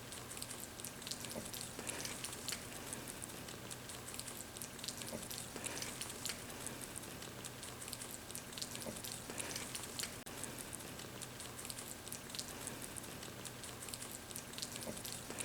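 Baby rabbits nibbling and chewing leafy wild greens: faint, irregular crisp crunching and rustling ticks.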